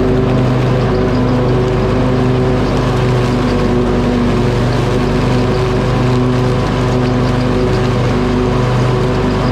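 Riding lawn mower's engine running steadily under load while mowing, its note wavering slightly every second or two.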